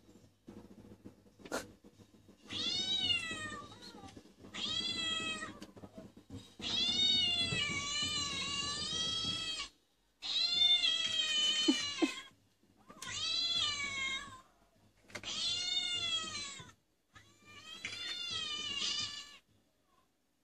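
Recorded cat meows played from a laptop's speakers: about seven long, wavering meows, one every two to three seconds, the third the longest. A single short click comes shortly before the first meow.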